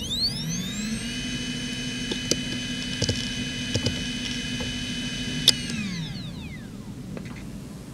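Toshiba MK1401GRRB 15,000 rpm 2.5-inch SAS hard drive spinning up, its whine rising and settling into a steady pitch about a second in. A few sharp head clicks follow as the drive initialises, the loudest just before five and a half seconds in. Then the whine falls away as the spindle spins down.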